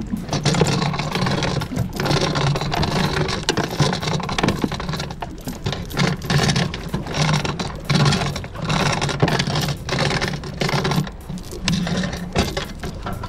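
A small 17 ft boat's motor running under way, with a steady low hum under the rush and knocking of the hull over chop and loose gear rattling. The hum weakens briefly near the end.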